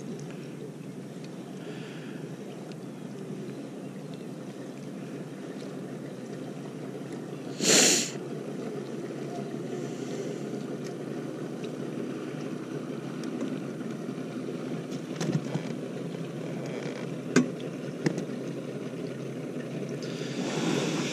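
Steady low wind and water noise around a small fishing boat, with one short loud rush of noise about eight seconds in and a few light clicks later.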